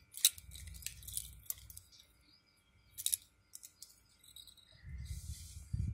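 Stainless steel link bracelet and folding clasp of a Fastrack 38052SM07 watch clinking and clicking as it is handled and turned over: a run of short, light metallic clicks, with a brief rustle about five seconds in.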